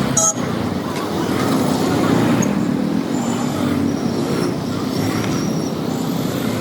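Steady road-traffic noise from a motorcycle ride, with engine rumble and road noise, and a short sharp sound just after the start.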